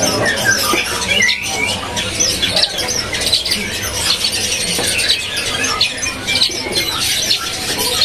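Many small caged songbirds chirping and twittering at once: a dense, continuous chatter of short high calls.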